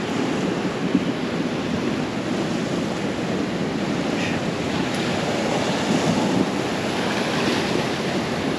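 Rough sea surf washing in and breaking over a rocky shoreline: a steady, unbroken rush of water.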